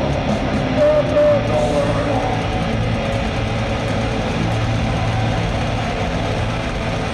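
Steady, loud din of a live metal show in an arena: crowd noise over a low droning rumble from the stage sound system, with a few shouted or whistled notes about a second in.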